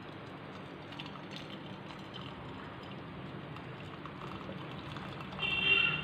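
Jaggery syrup pouring through a plastic strainer into a steel pan, a faint steady trickle. A brief high-pitched tone sounds shortly before the end.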